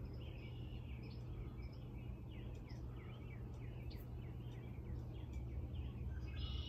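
Small birds chirping, a run of short falling chirps through the middle, over a steady low background hum.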